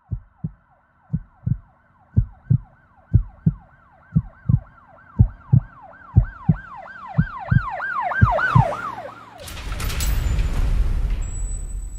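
A yelping siren whose pitch sweeps up and down about three times a second, growing louder, over low paired thumps about once a second. About nine and a half seconds in, the siren gives way to a loud rushing swell of noise.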